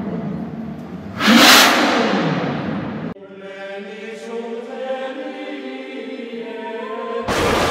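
A car engine revving, with a sharp rising surge about a second and a half in, cuts off suddenly. It gives way to a choir-like music sting of held chords, ending in a sudden loud boom near the end.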